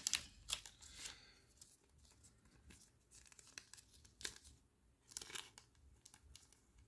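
Faint, scattered rustling and crinkling of a thin clear plastic card sleeve being opened and handled to slip a trading card in, loudest near the start and again about five seconds in.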